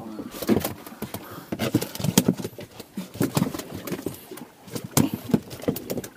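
Irregular hard knocks and clatter, a few every second.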